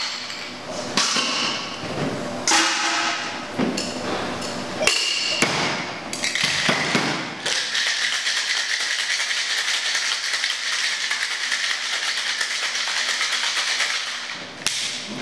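Cocktail shaken hard with ice in a metal shaker tin, a fast, even rattle lasting about seven seconds to combine and slightly dilute the ingredients. It starts about halfway in, after a few clinks and knocks as the cream is poured and the shaker is handled.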